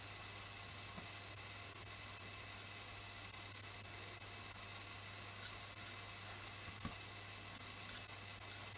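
Steady hiss with a low hum underneath, unchanging throughout, and two faint light ticks, one about a second in and one near the end.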